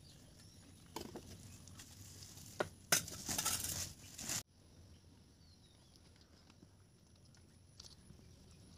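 Steel plates clinking and rice being scooped and rustled onto a banana leaf while a meal is served; a louder rustling scrape lasts about a second and a half near the middle and stops abruptly, leaving only a faint background.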